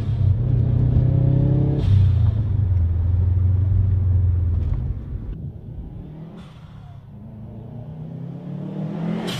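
Turbocharged flat-four engine of a V3 Subaru Impreza WRX STi pulling hard through the gears. Each time the throttle lifts, most clearly about two seconds in, there is a short hiss from the newly fitted atmospheric blow-off valve venting boost. After about five seconds the engine is more distant and quieter, then builds again toward the end, where another vent comes.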